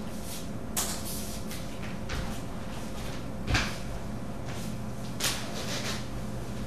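A few scattered knocks and clatters of someone moving about the room and handling things, the clearest about one, three and a half and five seconds in, over a steady low hum.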